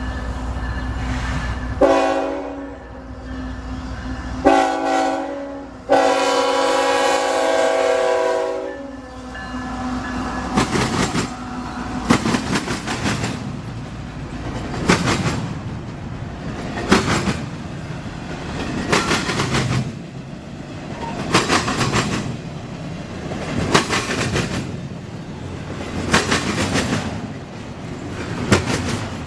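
A CSX intermodal freight train at a grade crossing: the locomotive horn sounds three blasts, a long one, a shorter one and another long one. Then the double-stack container cars roll through, their wheels clacking in a rhythm about every two seconds over a steady rolling noise.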